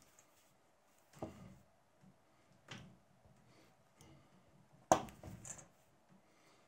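A small metal hand tool pressed and rubbed along the folded edge of a leather case on a wooden table: a few short scrapes and knocks, the sharpest about five seconds in, followed by a brief rustle of the leather.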